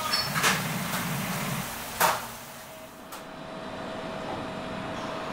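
Hamburg steak sizzling on a hot iron serving plate, with two sharp clinks of cutlery. About three seconds in this gives way to the steady hum of a JR West commuter train standing at the platform.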